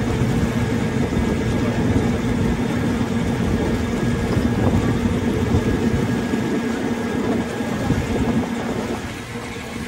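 Harbour Hopper amphibious tour vehicle (a LARC-V) running steadily as it carries its passengers, its engine a constant low drone, dropping a little in level near the end.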